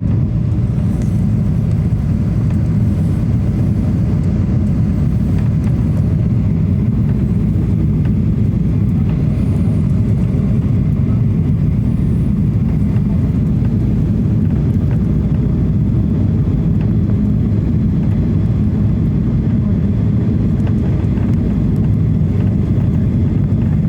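Airliner on approach to landing: a steady, loud low roar of engine and rushing-air noise that holds unchanged throughout.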